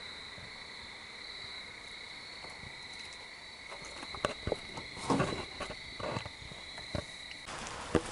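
Crickets trilling steadily on one high pitch, with a few handling knocks and clicks over the second half. The trill cuts off suddenly near the end.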